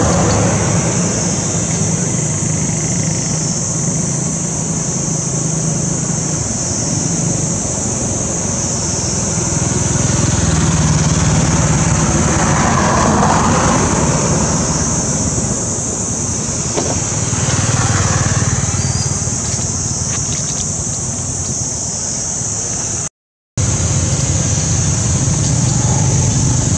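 Steady outdoor background noise: a low rumble with a constant high-pitched hiss above it.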